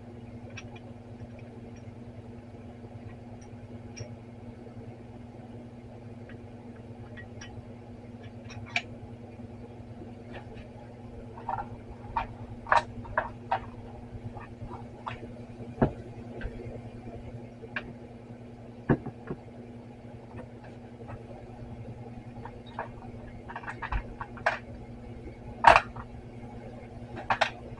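Metal carburetor body and small parts clicking and knocking as they are handled and set down on a workbench: a few light clicks at first, then sharper knocks from about halfway on, the loudest near the end. Under it runs a steady low hum.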